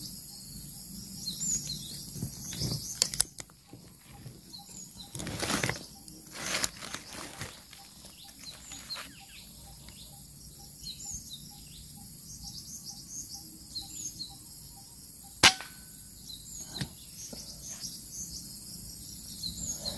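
A single sharp shot from a scoped rifle about three-quarters of the way through, fired at a long-tailed macaque up in a palm tree. Before it there is a long quiet stretch with faint bird chirps and a faint regular ticking at about three a second.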